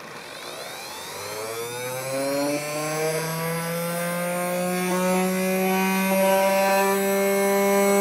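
Coffee-grinder motor spinning up a homemade gyroscope: a whine that rises steadily in pitch and grows louder as the rotor gathers speed.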